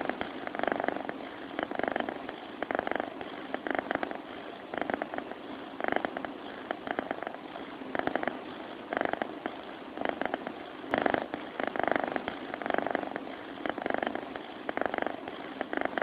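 A sleeping cat purring close to the microphone, a rapid rumbling flutter that swells and eases about once a second with each breath in and out.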